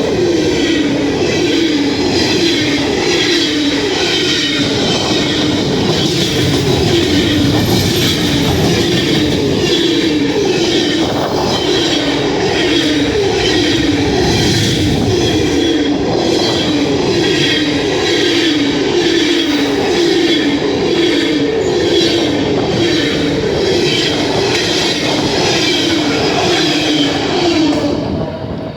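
CSX freight train's cars rolling past on the rails, a loud, continuous wheel-and-rail clatter with a repeating rhythm a little faster than once a second.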